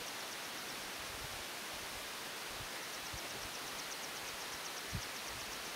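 Steady outdoor hiss of open air on the microphone. From about three seconds in comes a faint, fast trill of high ticks, and there is one soft low thump near the end.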